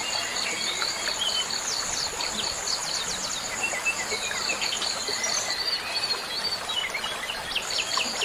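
Steady, high-pitched insect trill, pulsing rapidly, with scattered short bird chirps over it. The higher trill drops out a little past halfway and comes back near the end.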